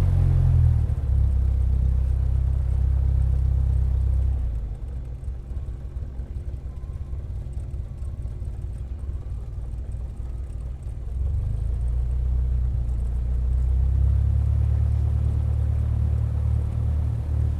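Propeller plane engine rumbling low and steady. It eases off about four seconds in, then builds back up around eleven seconds.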